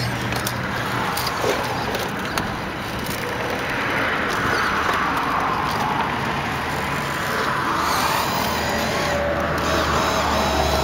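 Electric motor and gearbox of a radio-controlled scale rock crawler whining as it climbs. The whine rises in pitch over the first few seconds and falls away again.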